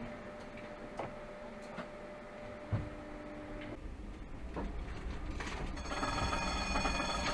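Tram's electric warning bell ringing steadily for the last second or so, sounded at a pedestrian stepping onto the track ahead, over the rumble of the driver's cab. Earlier there are a few single clicks and a dull thump.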